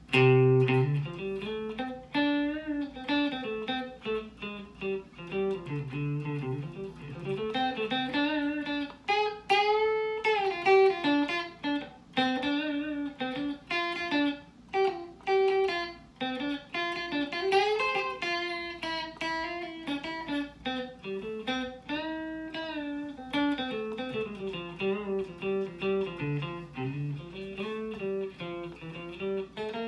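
Fender Stratocaster electric guitar played clean on its neck and middle pickups together, single notes and runs with frequent string bends.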